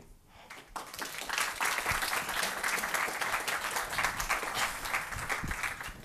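Audience applauding, a dense patter of many hands clapping that starts about a second in and stops near the end.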